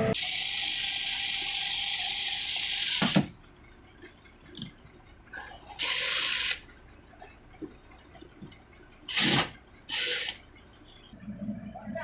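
Cordless drill running and boring into the bus's plastic dashboard in bursts: one run of about three seconds that stops abruptly, then shorter runs around six, nine and ten seconds in.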